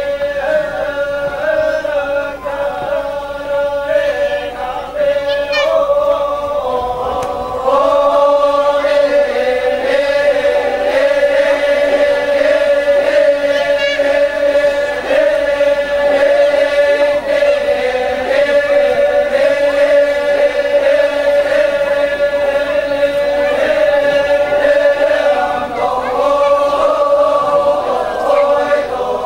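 A group of voices singing a Toraja funeral chant in long, held notes on a steady pitch. The chant grows louder about eight seconds in.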